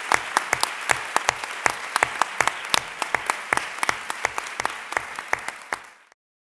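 Audience applauding, many hands clapping at once. The applause fades and cuts off to silence near the end.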